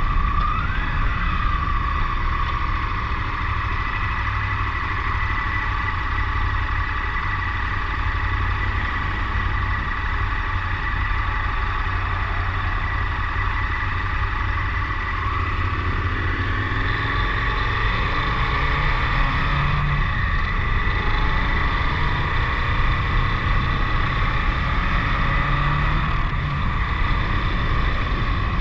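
KTM 1090 Adventure's V-twin engine running while the motorcycle is ridden, under a constant low rumble. A steady whine shifts pitch briefly near the start and again near the end.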